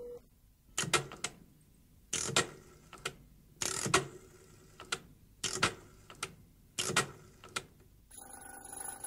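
Rotary telephone being dialled: a series of short clicking, whirring strokes as the dial is wound and runs back digit after digit. A ringing tone starts about eight seconds in as the call goes through.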